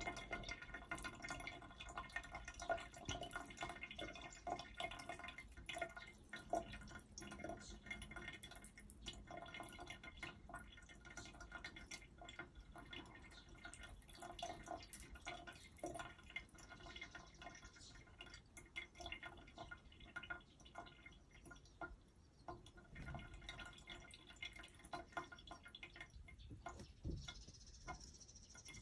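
Faint thin stream of water trickling from a faucet into a sink basin, with many small irregular drips and splashes as a cat drinks from the stream.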